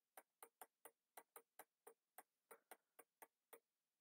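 Faint, fairly regular clicking, about three to four clicks a second, from a stylus tapping and moving on a pen tablet during handwriting.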